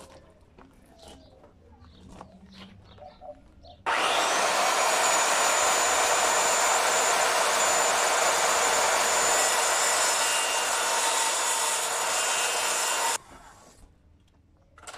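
Handheld electric circular saw cutting through a wooden plank. It starts suddenly about four seconds in, runs steadily for about nine seconds, and stops abruptly.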